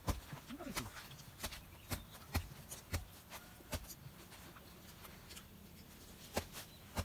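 Two people eating noodles: scattered short clicks and smacks of mouths and utensils at roughly one every half second to second, sparser in the middle.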